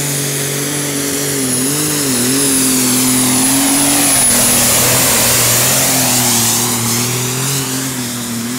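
Turbocharged diesel engine of a Superstock pulling tractor running at full throttle under the load of the sled, with a high whistle over it. The engine note wavers briefly about two seconds in. The sound grows loudest around the middle and eases off toward the end, while the whistle fades out about halfway.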